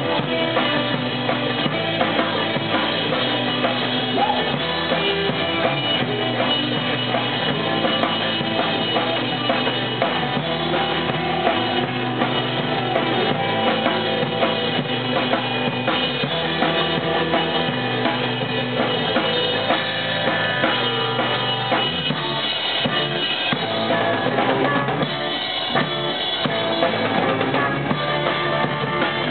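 A live rock band playing loud, with the drum kit's bass drum and snare driving a steady beat under electric guitars through amplifiers.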